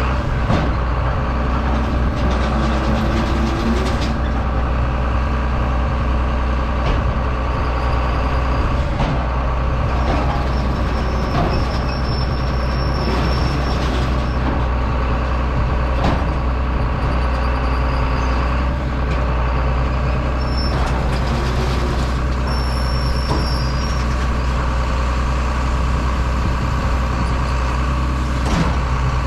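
Heavy diesel farm machinery running steadily at a constant pitch, with a deep engine hum and a faint higher whine coming and going.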